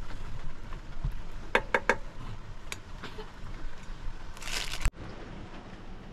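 A metal spoon clinking three times in quick succession against a steel tray and bowl of flour, with light scraping, then a short burst of rustling near the end that cuts off suddenly.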